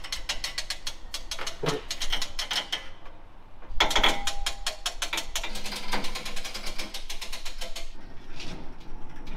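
Lift King truck-bed lift ratcheting as it raises a pickup bed off the frame: a quick, even run of clicks for about three seconds, a short pause, then a second, longer run.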